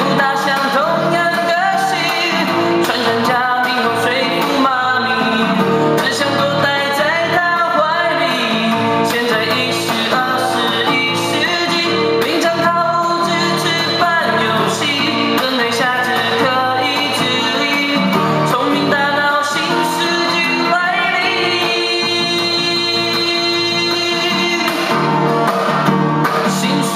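A pop song sung in Mandarin: a solo voice singing the verse over a steady band backing.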